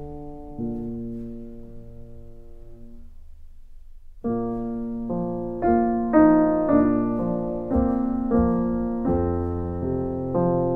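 Background piano music. A chord dies away about three seconds in, and a louder run of notes starts about a second later.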